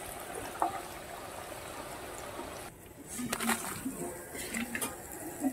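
Chhana nimki deep-frying in hot oil in a karai: a steady frying sizzle that breaks off suddenly about two and a half seconds in, followed by scattered clicks.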